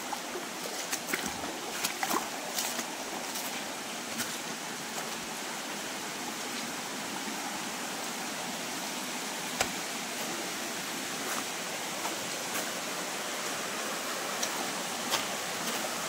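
Shallow stream running over rocks: a steady, even rush of water, with a few light clicks scattered through it.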